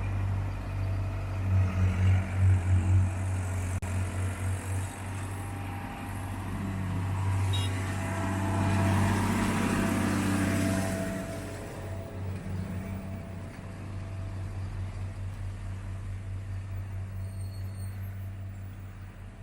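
Heavy diesel engine of road-building machinery running with a steady, pulsing low hum, and a swell of louder rushing noise around the middle.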